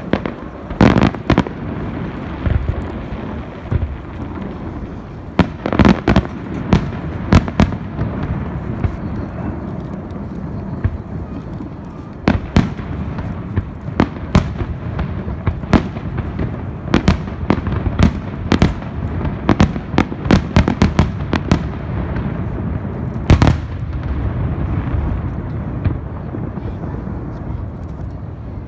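Aerial fireworks bursting: dozens of sharp bangs at irregular intervals, some in quick clusters, over a continuous low rumble.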